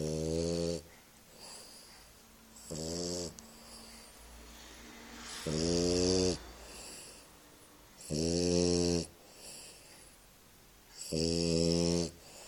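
A sleeping bulldog snoring: five loud snores, each under a second long, about every three seconds, with quieter breathing between.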